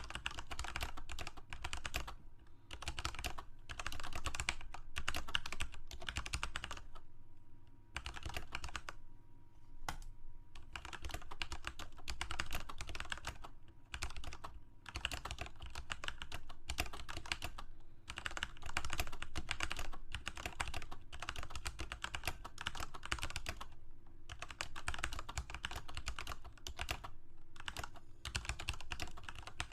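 Typing on a computer keyboard: rapid, continuous keystrokes in runs broken by a few short pauses.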